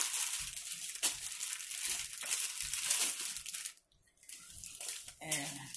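Plastic packaging crinkling and rustling as it is handled, stopping about four seconds in; a brief murmur of a voice near the end.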